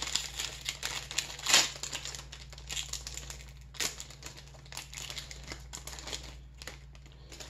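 Foil wrapper of a Topps Chrome trading-card pack crinkling and tearing as it is opened, in a string of sharp crackles, the loudest about a second and a half in and again near four seconds, dying away toward the end. A faint steady low hum lies underneath.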